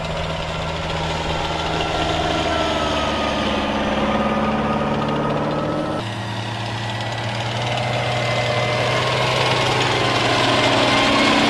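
Diesel engine of an M109A6 Paladin self-propelled howitzer (Detroit Diesel 8V71T) running steadily, with a thin whine above it. The engine note changes abruptly about halfway through.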